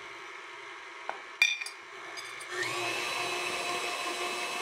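Stand mixer motor running as it beats chocolate cake batter with the flour just added. Two sharp clicks come about a second in, and about two and a half seconds in the mixer speeds up into a louder, steady whine.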